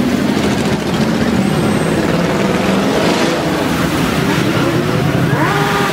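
Motorcycle engines running as the bikes pass in a procession, a steady drone, with one engine revving up near the end.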